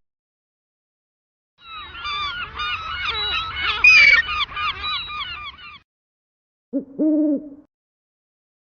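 A flock of geese honking together, many overlapping calls for about four seconds. Then a short, low two-note hoot.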